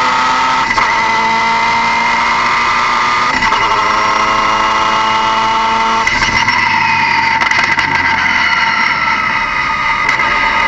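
Car engine running, with a steady high whine over it; the pitch shifts abruptly three times.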